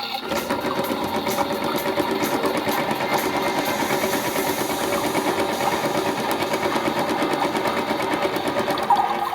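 Toy washing machine's small motor running, turning the drum with a steady whir and a fast rattle, starting a fraction of a second in just after a short electronic tune ends.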